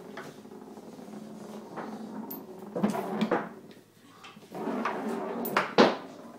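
Knocks and rattles of a tabletop foosball table as a cat paws at the ball and the players on the rods. There are two sharp knocks about three seconds in and two more near the end, the last the loudest.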